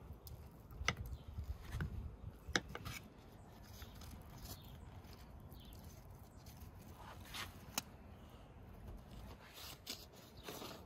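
Quiet handling sounds: a knife slicing into a block of soft butter, then pats of butter set and pressed onto baked khachapuri. Soft scraping in the first few seconds, then a few scattered light clicks and taps.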